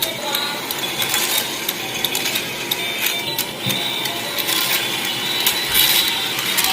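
Battery-operated duck race track toy running: its small plastic mechanism clicking and clattering rapidly and continuously.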